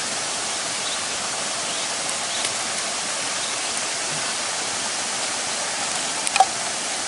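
Steady rushing of a river waterfall, an even wash of water noise throughout. A couple of short faint ticks about six seconds in.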